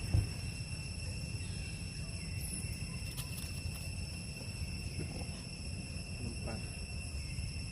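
Steady high-pitched insect drone holding several even tones, over a low rumbling background.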